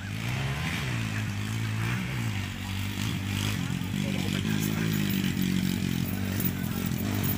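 Dirt bike engine revving up and down as it is ridden, getting louder as it comes closer.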